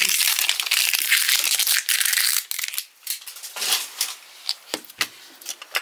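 Plastic wrapper crinkling as it is peeled off a Mini Brands capsule ball: dense crackling for about the first two and a half seconds, then a few scattered crinkles and clicks.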